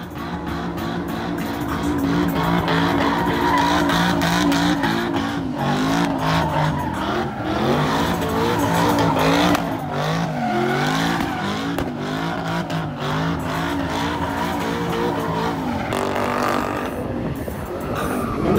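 LS V8 engine revving hard in a car spinning donuts, its pitch swinging up and down every second or so, with the tyres spinning and squealing on the asphalt.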